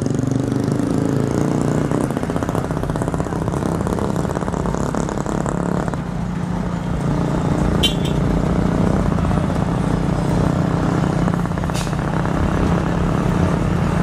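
Diesel truck engines running as trucks drive slowly past one after another, a steady low drone, with two short hisses about eight and twelve seconds in.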